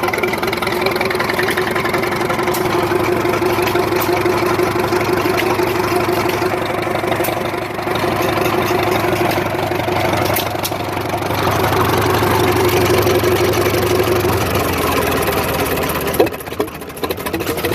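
1920 Harris 25-30 hp combine harvester engine running steadily. About sixteen seconds in the sound changes abruptly, turning quieter with a fast, rapid chatter.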